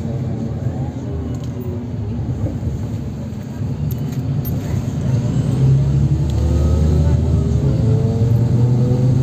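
A NefAZ 5299 city bus heard from inside while driving: steady engine and road rumble, with a whine that rises in pitch and grows louder from about five seconds in as the bus picks up speed.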